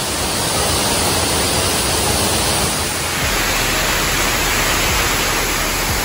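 Waterfall rushing steadily as white water tumbles over rocks.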